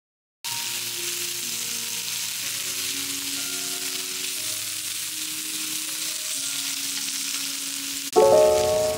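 Food sizzling as it fries, a steady hiss, with soft music underneath that grows louder near the end.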